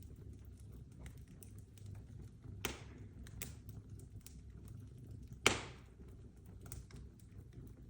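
Fire crackling steadily, with irregular small snaps over a low rumble and two louder pops, about a third of the way in and a little past two-thirds, the second the loudest with a brief hiss.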